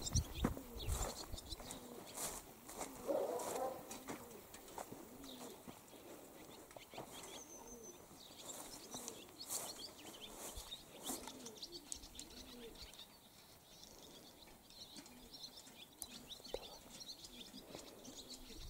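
Birds calling faintly in the open air: scattered chirps and twitters of small birds, with a few soft clicks.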